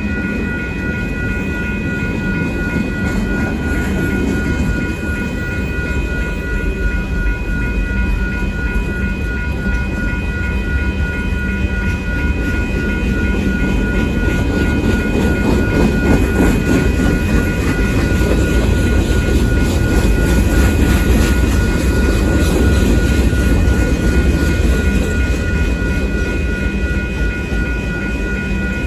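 Freight train rolling through a grade crossing: a continuous low rumble of wheels on rail, growing somewhat louder through the middle. Over it the crossing's warning bell rings steadily with a repeating ding.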